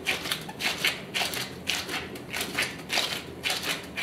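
Disposable plastic gloves crinkling in rhythmic bursts, about two a second, as gloved hands roll and press a ball of shortcrust dough.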